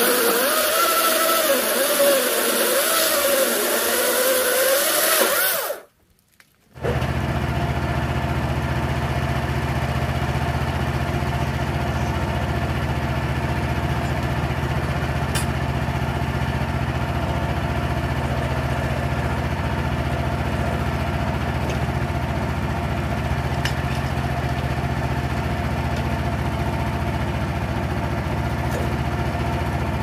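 Small two-stroke chainsaw running and cutting into a log, its pitch wavering up and down, for about the first six seconds. After a short break, a steady low engine idle runs on while a log is turned on the sawmill bed, with a few faint knocks.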